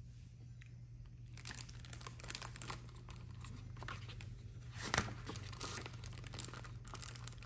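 Faint rustling and crinkling of a picture book being handled, starting about a second and a half in, with one sharp tap about five seconds in, over a low steady hum.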